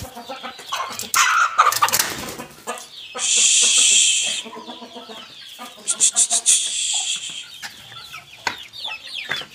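Chickens and young chicks clucking and calling as they move about freshly let out of their coop. About three seconds in, a loud rush of noise lasts for a second and a half.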